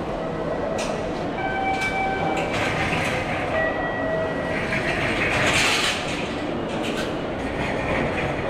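Railway station concourse ambience: a steady rumble and hubbub with a few sharp clicks and several short electronic tones, each held about a second.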